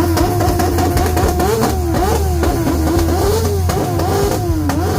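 BMW S1000RR inline-four engine revved hard: it climbs quickly, holds high revs for about a second and a half, then is blipped up and down in quick sharp rises and falls. Sharp crackles run through it.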